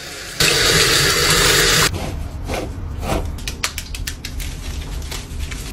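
Handheld shower sprayer spraying water onto a dog's coat: a loud, steady hiss that starts about half a second in and cuts off sharply after about a second and a half. Then wet rubbing and small clicks as the soaked coat is lathered by hand.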